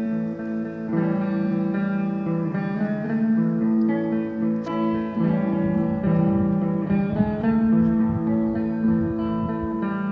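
Guitar jam: a plucked guitar playing slow, held chords and notes that change every second or so.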